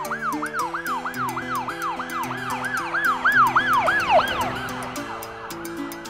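An ambulance siren wailing in a fast rise-and-fall about three times a second. It swells, then fades out about four and a half seconds in, over background music.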